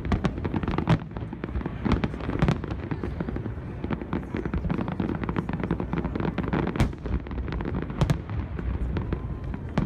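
Aerial fireworks going off in quick, irregular succession: many sharp bangs and crackles over a constant low rumble.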